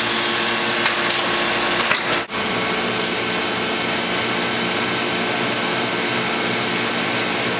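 Vinyl record pressing machinery running: a steady mechanical hum with hiss, broken by a brief sudden drop about two seconds in.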